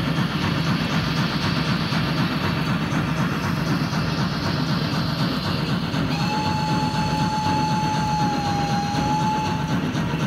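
Large-scale model steam locomotive running in place on a rolling-road test stand, with a steady running sound. About six seconds in, a single steady whistle sounds for roughly three and a half seconds.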